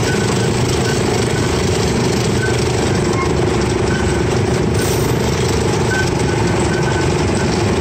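Engine of a miniature amusement-park train running steadily as the train rolls along, an even drone with no change in speed.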